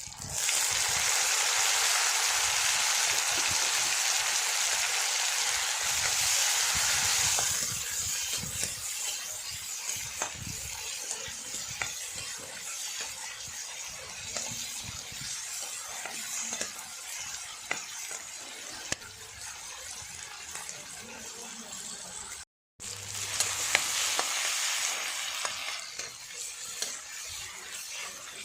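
Food frying in hot oil in a pan. A loud sizzle starts suddenly as the food goes in and settles to a quieter sizzle after about seven seconds, with light clicks of stirring. The sizzle surges again near the end.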